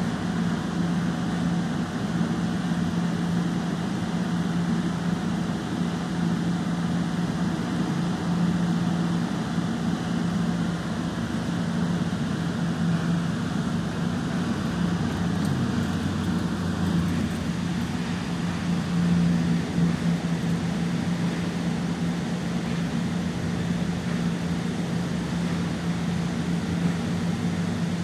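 Steady low mechanical drone with a constant hum, unbroken throughout.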